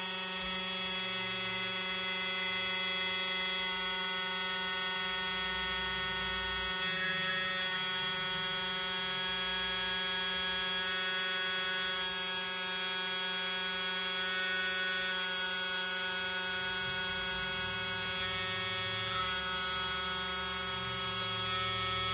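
Small electric motor driving a 3D-printed resin gear pump, running at a steady pitch with a whine as it pumps soapy water to a miniature hydraulic cylinder lifting a 300-gram weight.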